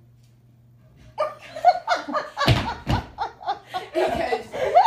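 A girl laughing hard in repeated bursts, starting about a second in after a brief quiet with a faint low hum.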